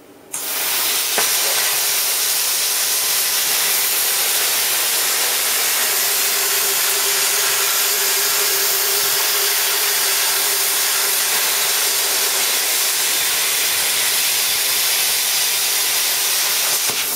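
PT31 plasma cutter torch cutting sheet metal: the plasma arc and air start abruptly and run as a loud, steady hiss with a faint steady tone underneath. The torch has a good ceramic cup and an uncracked swirl ring, and it is cutting cleanly.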